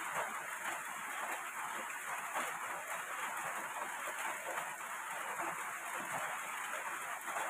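Steady hiss of heavy rain falling, with faint scattered clicks and rustles of cane strips being handled for basket weaving.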